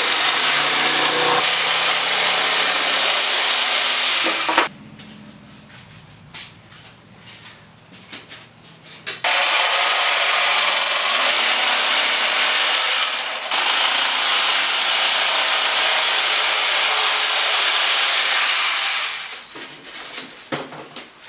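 A power tool running in three long bursts, with quieter handling clicks and knocks in the gaps between them.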